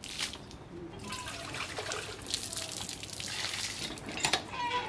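Water gushing from a hand-operated tube-well pump into a metal pitcher, starting about a second in, with a few sharp knocks.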